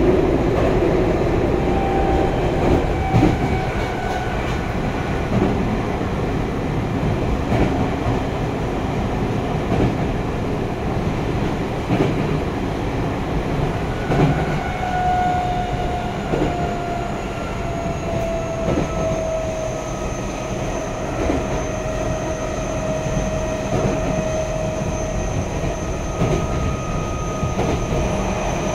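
Tokyo Metro Tozai Line subway train running at speed, heard from inside the passenger car: a steady rumble of wheels on rail with regular faint clacks. Several whining tones slowly fall in pitch through the second half.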